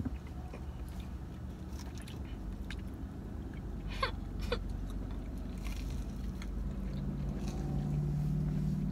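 Chewing and biting into burgers, with a few small clicks, over the steady low hum of a car cabin with the car running. About seven seconds in, a low steady tone joins the hum.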